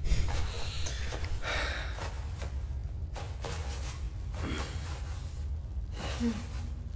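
A person's breathing, a breath about every second and a half, over a low steady hum.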